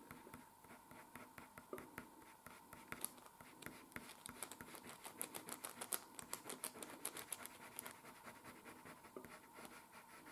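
Coloured pencil scratching on paper in rapid short strokes, faint, with the strokes coming thickest in the middle.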